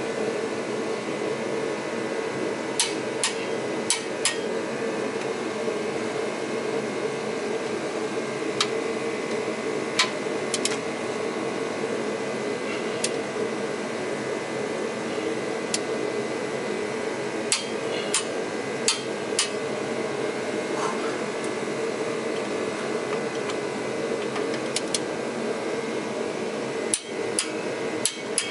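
A shop space heater's blower runs with a steady roar. Over it come scattered sharp metallic clicks, several in quick clusters, from a torque wrench and socket as the flywheel housing bolts are torqued down.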